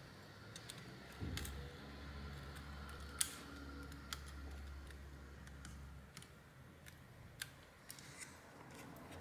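Faint ticks and clicks of metal tweezers handling thin flex cables on a laptop logic board, the sharpest about three seconds in and a few more near the end. A low hum runs from about one second to six seconds in.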